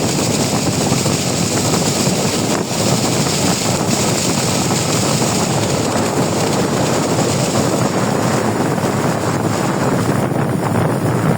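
Steady wind rushing over the microphone aboard a tour boat under way, mixed with the boat's running noise and the rush of water.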